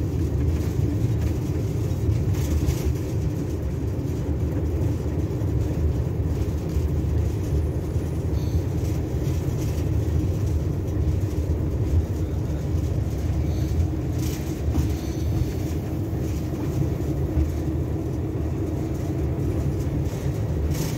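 Bangladesh Railway 6400 series diesel-electric locomotive running, heard from inside its driving cab: a steady low engine drone and the rumble of the moving train, with a couple of faint brief clatters.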